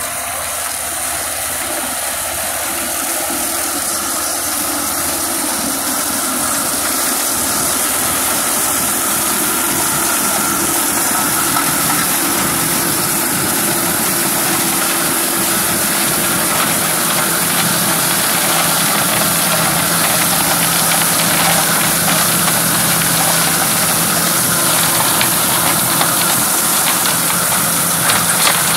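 Kubota M854K tractor's diesel engine running steadily under load while its rear-mounted flail shredder chops crop stubble, a continuous mechanical din with a hissing, rushing top. It grows somewhat louder over the first several seconds, then holds steady, with a few brief thumps near the end.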